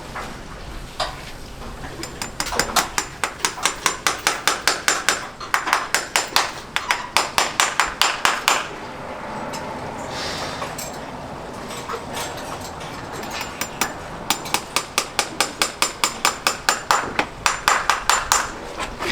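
Farrier's hammer striking metal in quick, even runs of about three or four blows a second, each with a short metallic ring. There are two long runs with a quieter stretch of scattered knocks between them.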